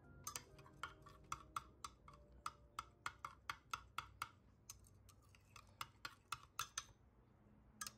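Light, quick clicks of a metal stirring tool knocking against a glass measuring cup as pigment is stirred into hot plastisol, about three a second with brief breaks, stopping near the end.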